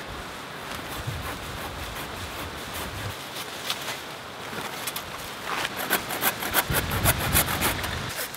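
Hand pruning saw cutting through an apple tree branch, its teeth rasping on the wood, with leaves and twigs rustling as the branch is pulled down. In the last few seconds the saw strokes come fast and loud, about three or four a second.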